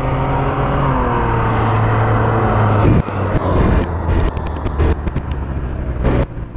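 A Can-Am Ryker Rally's 900 cc three-cylinder engine on its stock exhaust, running past under power. The pitch rises slightly, then eases, and the sound drops off sharply about three seconds in as the trike moves away.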